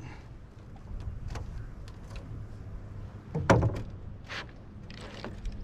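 Hollow thumps and knocks in a canoe as a freshly shot carp is hauled in, three or four of them with the loudest about three and a half seconds in.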